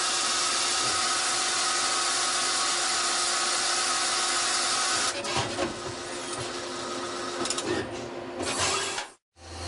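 Citizen Cincom L12 VII CNC lathe running while it drills a small part, a steady hissing machine noise with a few steady whining tones. About halfway through the noise drops and turns uneven with scattered clicks, then cuts out briefly near the end.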